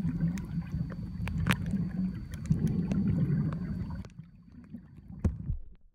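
Muffled underwater sound of water moving against a submerged camera: a low rumble with scattered sharp clicks, dropping away about four seconds in, with one more click near the end.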